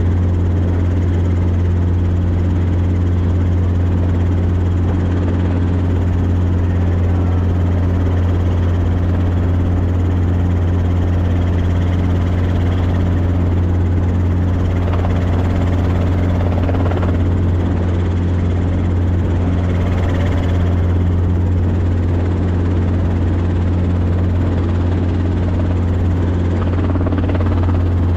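Robinson helicopter in flight, heard from inside the cockpit: a loud, steady low drone of rotor and engine that does not change.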